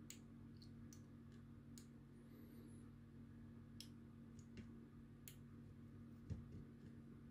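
Faint, irregular small clicks as fingers handle a transistor and push its wire legs into the holes of a circuit board, about eight in all, over a low steady hum.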